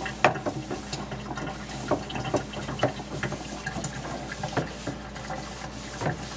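Paper towels wiping around the inside of a wet cast iron skillet to dry it after rinsing, a watery rubbing sound with scattered light knocks.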